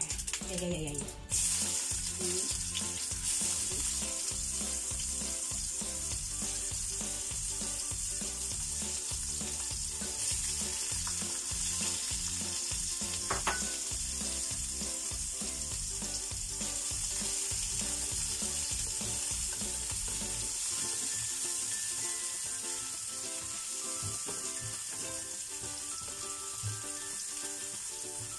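Fish balls frying in hot oil in a wok, sizzling steadily. The sizzle starts suddenly about a second in as they go into the pan.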